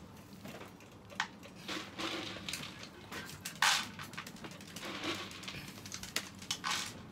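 Chihuahuas moving about inside a wire dog crate: a string of short scuffling and rattling noises at uneven intervals, the loudest about three and a half seconds in.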